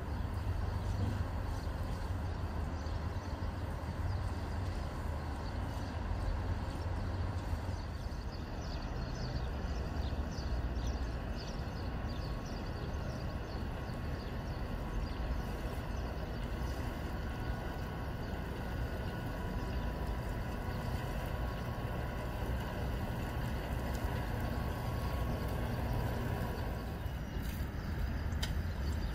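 Small harbour cleaning boat's motor running steadily as the boat moves slowly through calm water: a continuous low sound with no change in pace.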